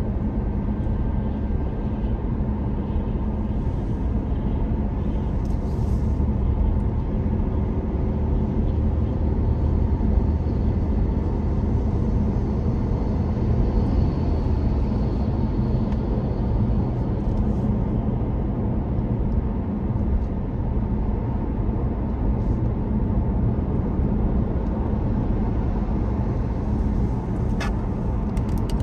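Steady road and engine noise of a car at highway speed, heard from inside the cabin as a low, even rumble. A few short sharp clicks near the end.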